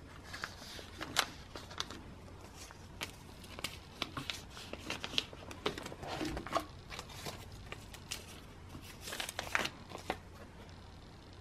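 Photocards being handled and slid into the plastic pockets of a collecting binder's pages: scattered short crinkles of plastic and light taps and clicks.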